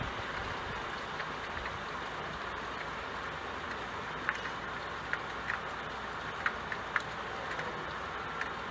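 Steady rain falling, with a few sharper drops or drips ticking now and then.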